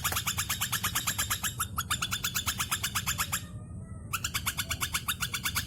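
Eagle calling: a long run of rapid, high chattering notes, about a dozen a second, that breaks off briefly past the middle and then starts again.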